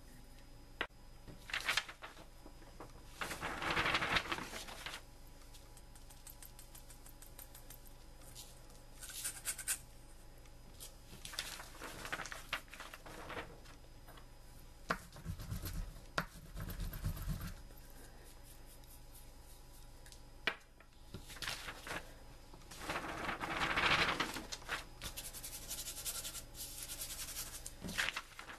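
Fingers scraping and brushing crushed match-head powder across a sheet of paper: scratchy paper rustling in several swells, with scattered light taps and a few dull bumps about halfway through.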